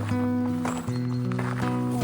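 Background music of sustained low chords, changing about once a second.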